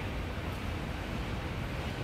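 Steady city street noise: a low rumble under an even hiss.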